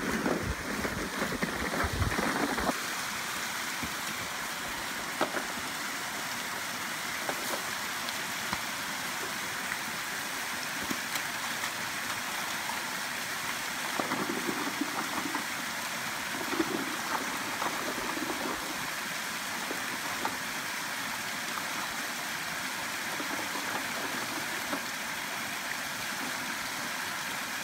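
Shallow creek water rushing steadily over a small rock ledge, an even hiss. In the first couple of seconds, louder irregular splashes from wading in the water.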